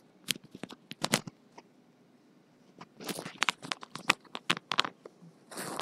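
Handling noise of a clip-on lapel microphone being fastened to a jacket: irregular close-up clicks, scrapes and fabric rustle in two clusters, ending in a short rustle.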